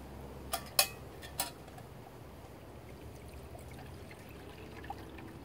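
Water poured from a bottle into a stainless steel canteen cup, filling it to boil. A few sharp clicks of the cup and bottle being handled come in the first second and a half. The pour is faint and rises slowly in pitch as the cup fills.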